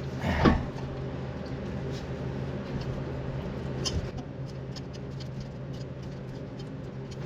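A C-clamp bearing on a steel plate is screwed in against a front brake caliper to push the pistons back: scattered small metallic clicks and creaks, with one brief louder sound about half a second in, over a steady low hum.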